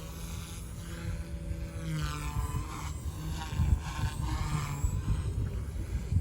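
OXY 2 electric RC helicopter in flight, its motor and rotor whine rising and falling in pitch as it manoeuvres. Strong wind buffets the microphone in gusts underneath.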